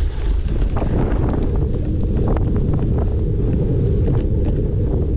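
Wind buffeting the microphone of a camera on a cyclocross bike being raced: a loud, steady low rumble, with a few sharp clicks and knocks through it.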